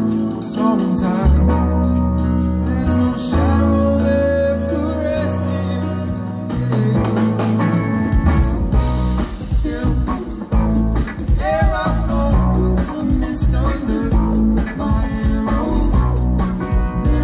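Live rock band playing amplified through a PA: electric guitars, bass, keyboards and drums, with sustained bass notes and bending guitar lines. The bass moves into a busier, more rhythmic part about halfway through.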